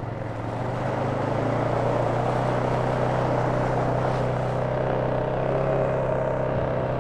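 Polaris Sportsman 570 ATV's single-cylinder engine running steadily while riding along a trail, getting a little louder about a second in.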